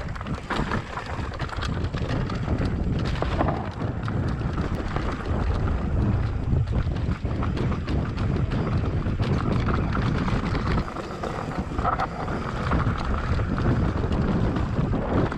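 Wind rushing over the microphone during a fast descent on a Giant Glory downhill mountain bike, with the tyres rumbling and many short knocks and rattles as the bike runs over rough trail.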